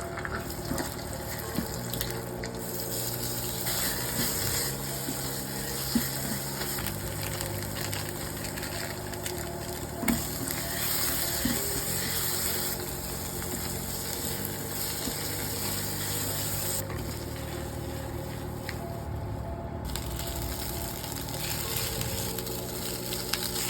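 Nasi goreng (fried rice) sizzling in a hot pan, a steady frying hiss with a few sharp knocks, the loudest about 6 and 10 seconds in.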